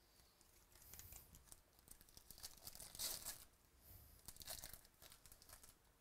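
A baseball card pack's wrapper being torn open and crinkled by hand. It comes in several short crackling bursts, loudest around three seconds in.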